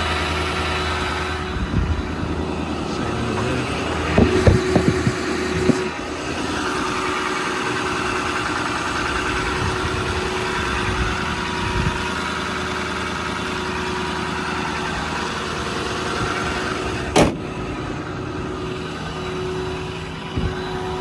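An engine idling steadily, with a few knocks about four to six seconds in and one sharp knock a little after seventeen seconds in.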